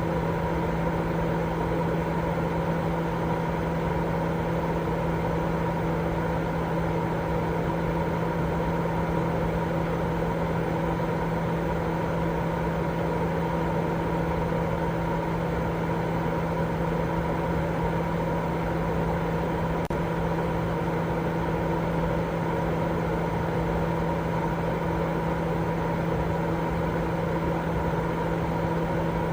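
Continuous sleep white noise: a steady, even rushing noise with a low hum running through it, unchanging throughout.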